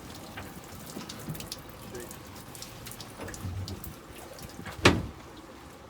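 Water splashing and trickling, with faint drips and ticks and one sharp knock about five seconds in.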